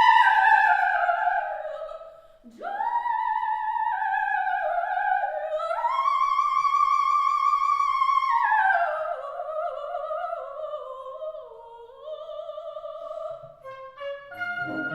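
Background music in an opera style: a single high melody line with vibrato, long held notes that slide from one pitch to the next. Fuller accompaniment comes in near the end.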